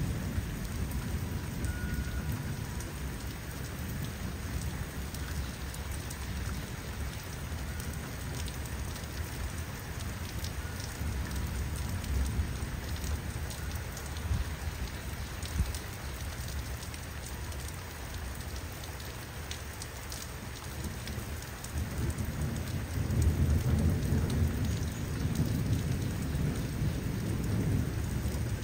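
Steady rain falling, with low thunder rumbling under it and swelling louder about three-quarters of the way through.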